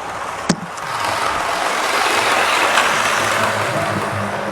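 OO gauge model HST running along the layout track, its motor hum and wheel noise on the rails swelling as it comes close. A sharp click about half a second in.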